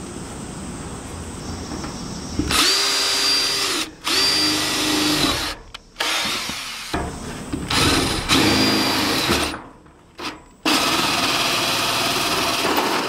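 Cordless drill with a hole saw cutting a hole through the galvanized steel wall of a stock tank. It runs in about five bursts of one to two seconds with short stops between, its motor whine rising at the start of each. The last and longest burst is a steady cut as the saw teeth go through the metal.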